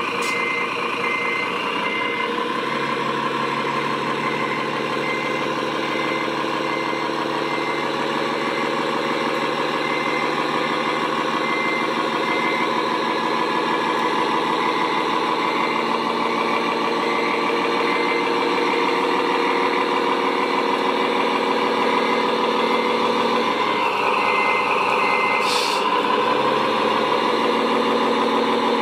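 Radio-controlled construction truck running with a steady engine hum. A high reversing beeper sounds through the first dozen seconds and again briefly about three-quarters of the way through.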